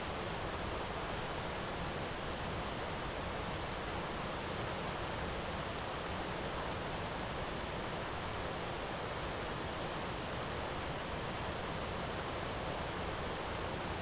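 Steady, even rushing background noise that does not change, with no bird calls or other distinct sounds.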